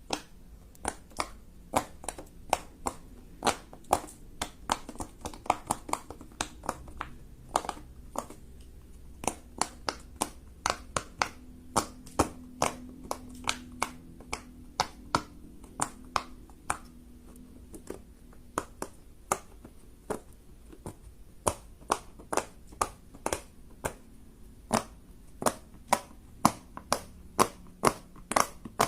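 Fidget toys being clicked and popped by hand: a long series of sharp, separate clicks, about two or three a second at an uneven pace.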